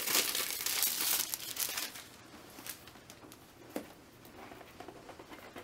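Clear plastic shrink-wrap crinkling and tearing as it is peeled off a cardboard notebook box, busiest in the first two seconds, then dying down to a few faint clicks of the box being handled.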